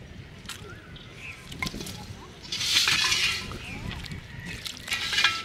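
A small fish splashing in a shallow aluminium bowl of water, with clinks of the metal bowl. It comes in two loud splashy bursts, one about halfway through lasting about a second and another near the end.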